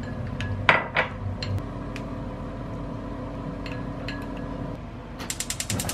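Spoon stirring sauce in a small glass bowl, with two sharp clinks against the glass about a second in and a few lighter taps after. Near the end, a gas stove's igniter starts clicking rapidly, about ten clicks a second.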